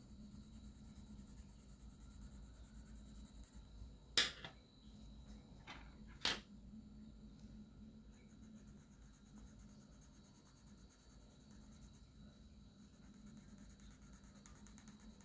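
Faint scratching of a coloured pencil shading on sketch-pad paper, with a few short sharp clicks about four to six seconds in.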